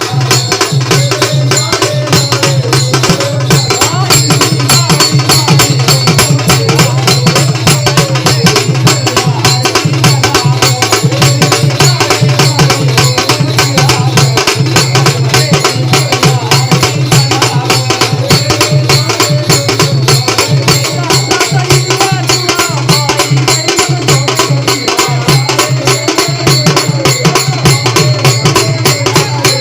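A Marathi devotional bhajan to the goddess: a man sings over a fast, steady rhythm of drums and jingling percussion.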